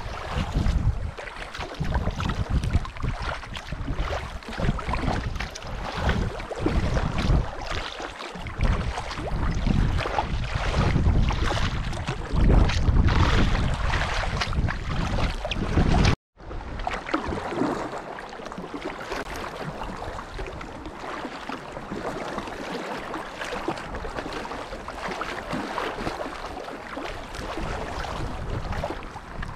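Splashing, moving water with wind gusting on the microphone. About 16 seconds in the sound cuts out briefly, then the wind eases and a steadier water noise continues.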